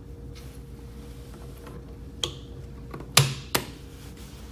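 Plastic clicks and knocks as the display cable is plugged back in and the round plastic display cover is pressed back onto the circulator pump's head: a few sharp snaps, the loudest two close together about three seconds in.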